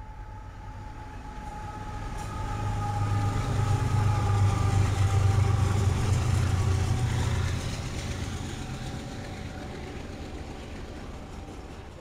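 BNSF diesel locomotives passing close by, their engine rumble building to its loudest about four to seven seconds in, then easing to the rolling of freight cars on the rails. A faint high whine, falling slightly in pitch, sounds through the first half.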